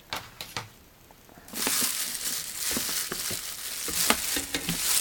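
Packaging crinkling and rustling as it is handled, after a few light clicks near the start.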